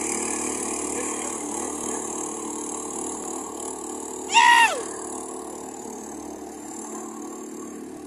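Small boat's outboard motor running steadily as it pulls away, growing fainter with distance. About halfway through, a brief loud call falling in pitch cuts across it.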